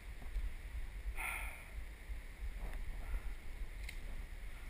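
Low, steady rumble of wind on the microphone, with a brief distant sound about a second in and a single sharp click near the end.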